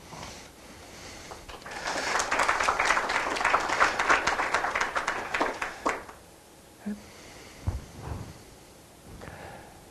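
Audience applauding. The clapping starts about a second and a half in and dies away after about four seconds, followed by a few soft low thumps.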